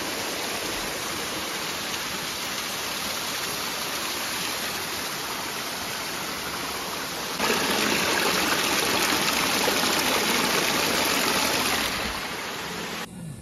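Steady rush of running water, a mountain stream or small waterfall. It gets louder for a few seconds from about halfway, then cuts off abruptly near the end.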